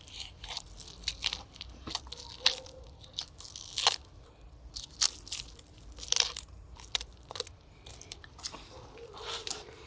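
A knife blade cutting into a fish, giving a string of sharp, irregular crunches about a second apart, some in quick pairs.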